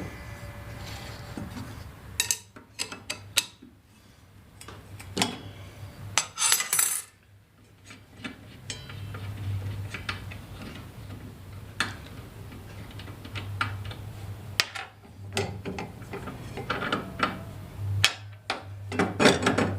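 Scattered metal clinks and clanks of wrenches and a steel saw blade being handled as a table saw blade is taken off its arbor, in clusters separated by quieter stretches.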